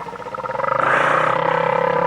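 A farm animal's long call, swelling up about half a second in and held at a steady pitch.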